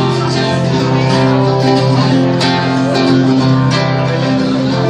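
Guitar-led music with strummed and plucked strings and no singing: an instrumental break between sung verses of a song.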